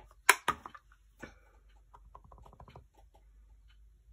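Two sharp plastic clicks from a rubber-stamp ink pad case being handled and opened, then a quick run of light taps as a small clear-block stamp is dabbed onto the ink pad.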